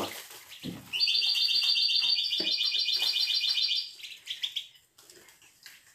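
European goldfinch giving a fast, high, even twittering trill for about three seconds, starting about a second in, with a few faint knocks around it.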